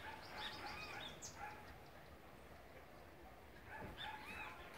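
Faint dog whining: short, high-pitched whimpers that rise and fall, in two little clusters, near the start and again near the end.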